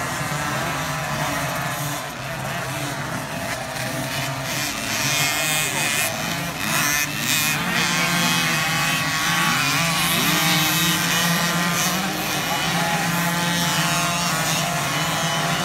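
Several 50cc two-stroke motocross bikes racing on a dirt track, their engines revving up and down in overlapping whines that rise and fall as the riders work the throttle.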